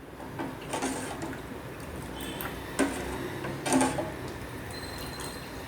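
Thin tomato-and-water mixture sloshing in a pot as it is stirred, with three clinks of the spoon against the vessel.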